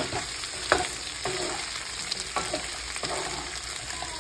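Onion and bell-pepper chunks sizzling in a frying pan while a spatula stirs them, scraping and knocking against the pan every half second to a second.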